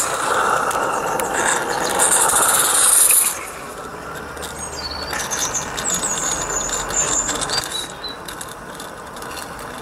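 Small live steam garden-railway locomotive, a Roundhouse 'Dylan', running light engine: a fast chuffing hiss from its exhaust with wheels clicking over the track. It is loud at first and drops away suddenly about three seconds in. A few short high squeaks come later.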